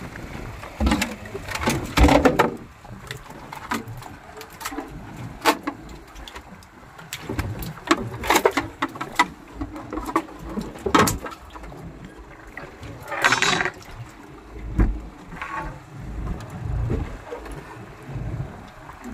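An eel being handled aboard a small fishing boat: scattered knocks, taps and slaps against the deck and fish hold, with louder rough scraping bursts about two seconds in and again around thirteen seconds.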